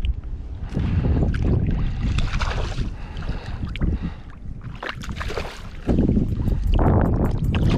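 Wind buffeting the microphone over uneven water sloshing and splashing while a hooked fish is fought in shallow bay water. About six seconds in, a fast, light, even ticking starts at about four a second.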